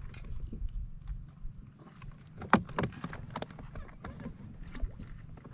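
Irregular knocks and clicks on a small fishing boat, a few sharper ones about two and a half to three and a half seconds in, over a low steady rumble.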